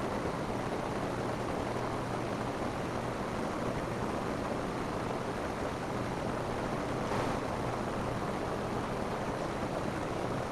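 Steady rain falling on a roof, an even hiss of drops, with a brief brighter, sharper stretch about seven seconds in.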